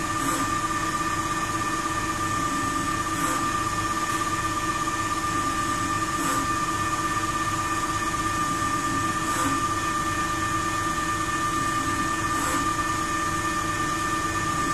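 Ajax Fel 1760 CNC lathe running its thread-cutting program: a steady spindle-and-motor whine with several constant tones, and a faint brief sound about every three seconds as the threading passes repeat.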